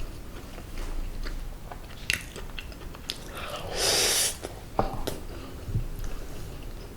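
Close-miked mouth sounds of someone eating boneless seasoned braised pollack (kodari): soft chewing with scattered small wet clicks. About four seconds in, one loud breathy rush lasts under a second.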